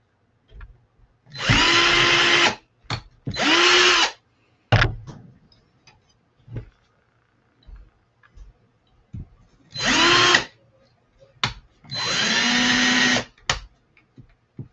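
Cordless drill running in four short bursts, each whining up to speed and then holding steady for about a second, as it bores into the wooden sign board at the bottle opener's mounting holes.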